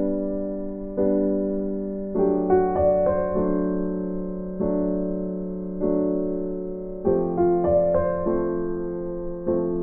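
Background piano music: soft chords struck roughly once a second, each ringing out and fading.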